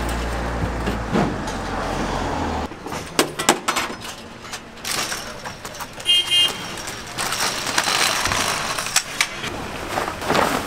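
Electric hydraulic tailgate lift of a small box truck humming as it runs, stopping abruptly a little under three seconds in. Then a folding metal pop-up canopy frame clatters and rattles as it is pulled open, with a short high beep about six seconds in.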